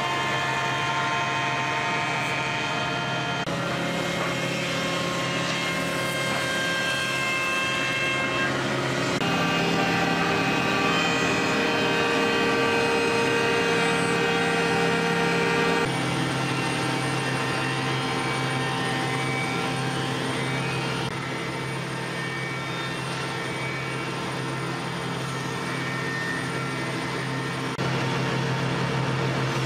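Woodworking machinery running with a steady hum and several held tones, the mix changing abruptly every few seconds.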